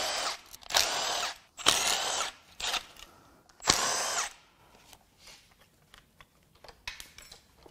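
Cordless power tool on a socket extension spinning bolts out of a housing on a cylinder head, in four short bursts of about half a second each. Light clicks and clinks of parts being handled follow.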